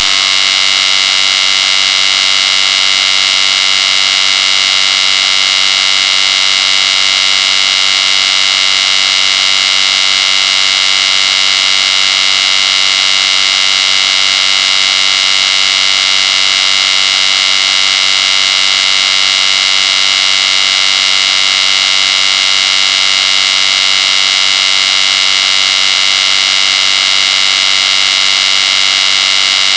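Electric hair clippers running with a steady, high-pitched buzz that does not change.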